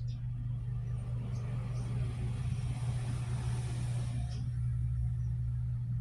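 Steady low hum, with a road vehicle passing by: a rushing noise that swells about a second in and fades out about three and a half seconds later.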